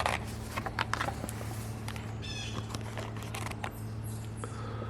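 Book pages being turned and handled: a few short rustles and taps in the first second or so. A brief bird call comes about two seconds in.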